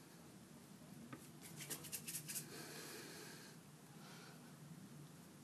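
Faint handling noise from hands working soft play dough on a tiled tabletop: a run of small clicks and crackles about a second in, then a brief soft rustle.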